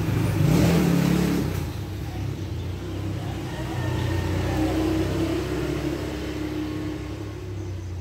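A motor vehicle engine running close by, louder in the first second and a half, easing off, then rising again about four to five seconds in.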